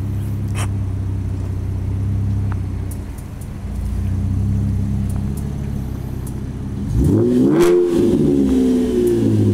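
Fifth-generation Chevrolet Camaro's engine idling steadily with a low hum. About seven seconds in it is revved, the pitch climbing and falling back, as the car pulls away.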